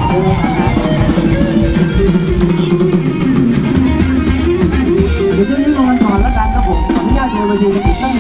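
Live band playing Thai ramwong dance music loudly through a PA, with a steady drum beat and a melody line over it.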